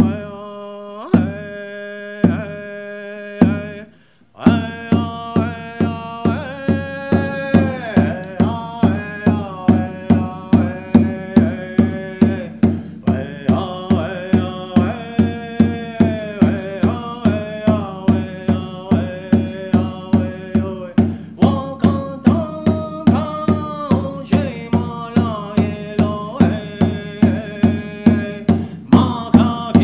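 A man singing a Lakota wopila (thank-you) song in long, gliding held notes, accompanying himself on a hand drum. The drum gives a few slow strokes, stops briefly about four seconds in, then keeps a steady beat of about two strokes a second under the voice.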